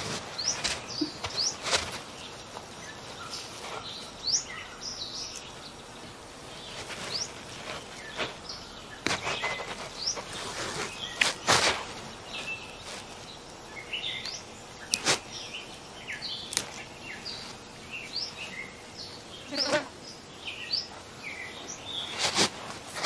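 Small birds chirping in short rising and falling calls, with scattered sharp crackles and rustles of plants being brushed through and picked.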